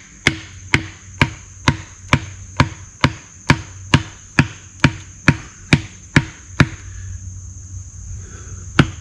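Splitting wood with a Fiskars axe: steady, evenly spaced knocks about twice a second. They stop for about two seconds near the end, then start again. Insects drone steadily at a high pitch throughout.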